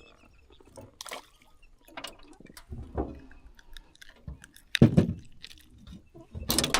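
Irregular knocks, thumps and wet handling noises as a small flounder is unhooked by hand on a fishing boat. The heaviest thump comes about five seconds in.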